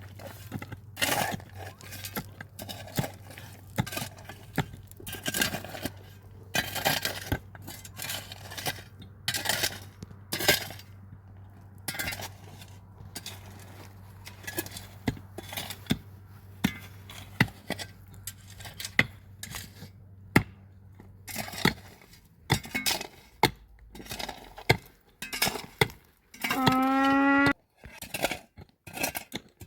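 Repeated knocks and clatter of wooden pieces being handled and set in place, over a low steady hum that stops about three-quarters of the way through. Near the end, a single loud animal call about a second long, like a cow lowing.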